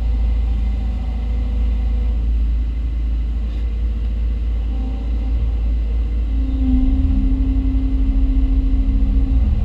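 Hyundai Robex 220-9A LC excavator's diesel engine and hydraulics, heard from inside the cab while the machine is working: a steady deep rumble with a humming tone that grows stronger and a little louder about two-thirds of the way in.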